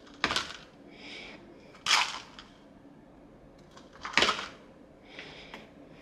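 Supplement tablets and capsules being handled in plastic tubs: three sharp clattering rattles about two seconds apart, with softer shaking in between.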